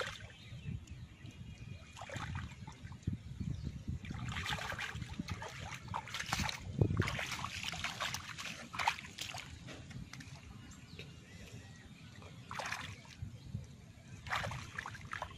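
Hands splashing and sloshing in shallow muddy water among grass, in irregular bursts with quieter gaps between, as fish are groped for by hand.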